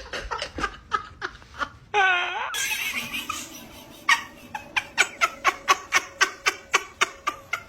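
A person laughing in rapid repeated bursts, with a short wavering squeal about two seconds in and a long steady run of quick laughs through the second half.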